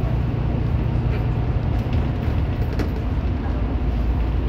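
Steady low rumble of engine and road noise inside a moving vehicle's cabin at highway speed, with a few faint clicks.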